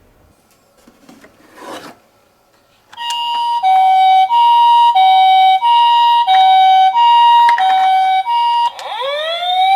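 A short scraping rub about a second in. From about three seconds in, a toy ambulance's electronic two-tone siren alternates steadily between a high and a low note, the Japanese ambulance "pee-po" pattern. Near the end a second siren joins with a wail that rises in pitch.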